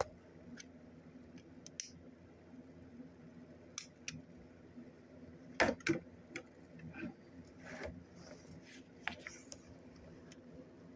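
Hands handling a butane soldering iron and its small plastic and metal parts: scattered clicks and light knocks, a few close together around the middle, over a faint steady low hum.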